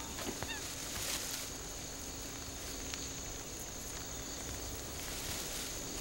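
Night-time ambience: a steady, high insect chorus of crickets over a soft even hiss, with a few faint short chirps under a second in.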